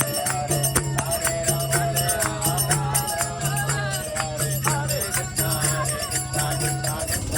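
Devotional music: a melody over a steady low beat, with jingling percussion strikes throughout.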